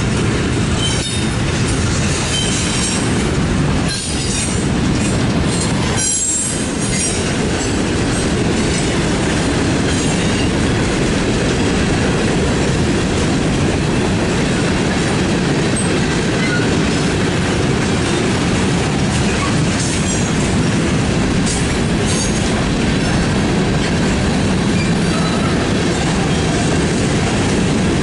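Freight train cars (intermodal well cars, then covered hoppers and tank cars) rolling past close by: a steady, loud rumble of steel wheels on rail. Sharp clicks and brief squeaks come through over the first seven seconds or so.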